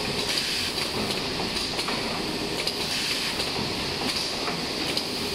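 Automatic paint roller sleeve cutting machine running: a steady mechanical clatter with many light, irregular clicks.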